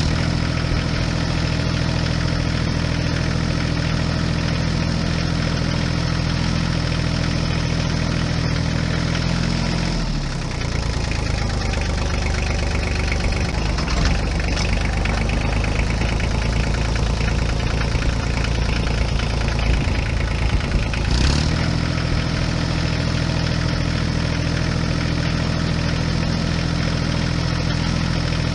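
Small electric motor of a DIY toy tractor's post-hole auger running with a steady whir. About ten seconds in, the steady tone falls away and the sound turns rougher, then the whir comes back about twenty-one seconds in.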